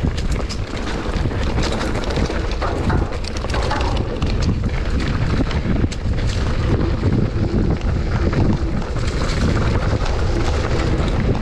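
Wind buffeting the microphone, mixed with the crunch and rattle of a mountain bike rolling fast over a dry, rocky dirt trail, with scattered sharp clicks from stones and the bike's parts.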